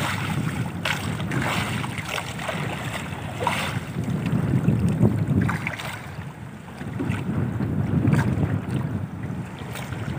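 Wind buffeting the microphone, swelling and easing in gusts, over sea water lapping and splashing against the side of a small outrigger boat.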